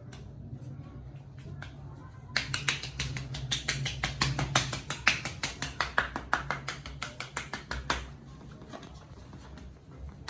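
Fast percussive massage strokes: a quick, even run of sharp slapping strikes, about seven a second, starting about two seconds in and stopping near eight seconds, over a steady low hum.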